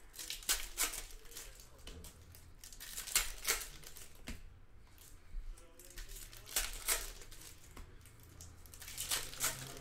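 Packaging of a retail box of basketball trading cards being torn open and handled: irregular crinkling and ripping of wrapper and cardboard, with short quieter gaps.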